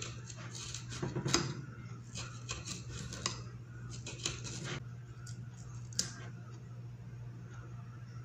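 Kitchen knife cutting through watermelon rind and scraping against a plate, in several short crisp runs, with a sharp click about six seconds in. A steady low hum runs underneath.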